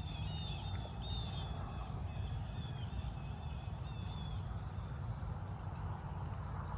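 Songbirds chirping in short, repeated calls through the first few seconds, over a steady low rumble.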